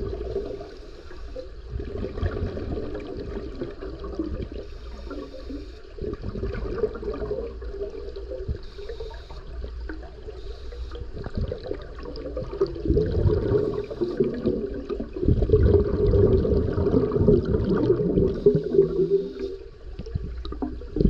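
Scuba diver breathing through a regulator: exhaled bubbles rush out in irregular spells, with longer, louder bubble spells in the second half.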